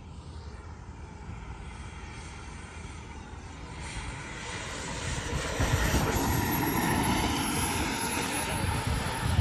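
Radio-controlled model jet fighter flying past: a high whine over a rushing jet sound grows louder, peaks about six seconds in, then slowly fades as the whine drops slightly in pitch.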